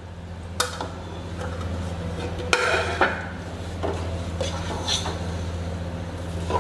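A spoon scraping and knocking against a pan while semolina and chopped vegetables are stirred and roasted in oil. There are a few sharper knocks about halfway through, over a steady low hum.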